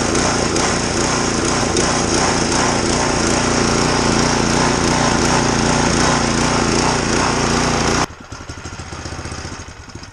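Log splitter's 6.5 HP single-cylinder gasoline engine running steadily with no hydraulic load, because a failed pump-to-engine coupler leaves the hydraulic pump undriven. About eight seconds in the engine cuts out abruptly, followed by fading pulses as it coasts to a stop.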